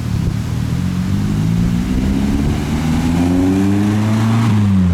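Car engine accelerating, its pitch climbing steadily for a few seconds, then dropping sharply near the end as it shifts up a gear.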